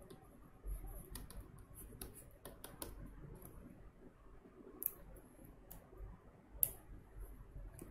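Faint scattered clicks and taps of a stylus on a writing tablet while handwriting, several close together in the first three seconds and a couple of single clicks later.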